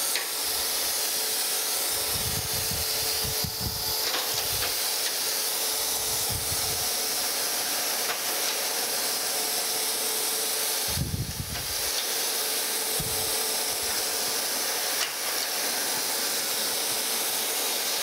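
Surface grinder running: a steady hiss from the spinning grinding wheel as the table carries the straight edge under it, the wheel lightly grinding only the high spots of the face. A faint steady hum runs underneath, with a few short low rumbles every few seconds.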